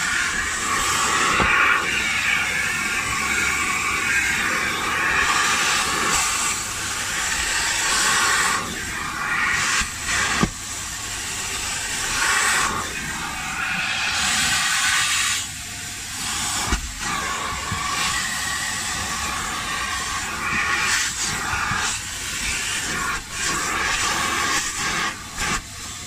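Kärcher spray-extraction carpet cleaner running: its wet-vacuum nozzle sucks water and dirt out of car floor carpet with a steady loud hiss. The suction noise changes and briefly drops several times as the nozzle is moved over the carpet.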